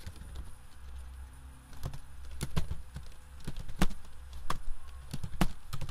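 Computer keyboard typing: single key clicks at a slow, uneven pace, over a low steady hum.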